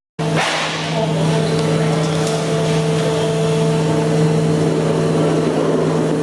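Brokk 160 demolition robot's electric motor and hydraulic pump running steadily: a constant hum with a low drone and a fainter higher tone above it, and no breaker blows.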